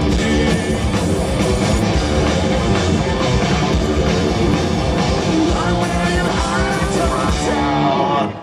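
Live punk rock band playing through a stage PA: distorted electric guitars, bass, fast drums and a shouted lead vocal, heard from within the crowd. The song stops abruptly at the very end.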